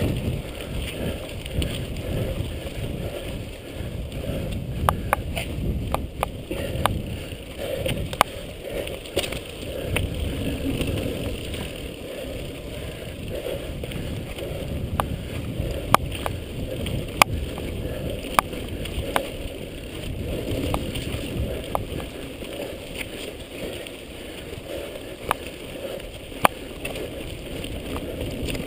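Mountain bike riding fast down a dirt singletrack: a steady rumble of tyres on dirt, with sharp clicks and rattles from the bike over bumps scattered throughout.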